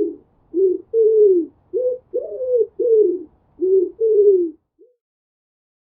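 Pigeon cooing: a run of low, mostly falling coo notes, about two a second, that stops about four and a half seconds in.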